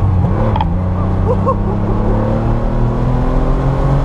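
Porsche 911 Carrera flat-six engine heard from inside the cabin, accelerating through a gear with its pitch rising slowly and steadily.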